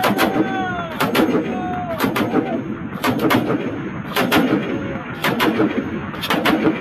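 Belt-fed PK-pattern machine gun firing short bursts of a few rounds each, about one burst a second, seven bursts in all.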